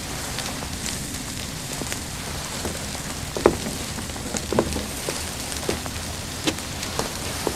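Steaks sizzling on a flat-top griddle: a steady frying hiss with occasional sharp pops and clicks.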